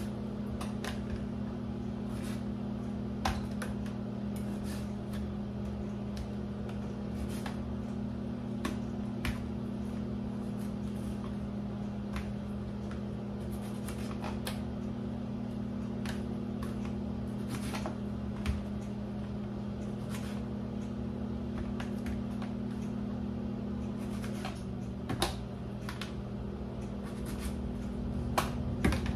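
Small kitchen knife clicking now and then as strawberries are topped and cut over a plastic clamshell, with sharp taps at uneven intervals. A steady low electrical hum runs underneath.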